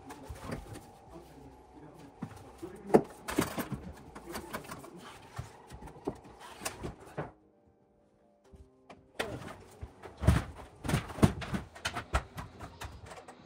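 Irregular knocks, taps and clicks of an ABS drain pipe being handled and fitted into overhead fittings. There is a brief near silence a little past the middle, then the knocking resumes, louder.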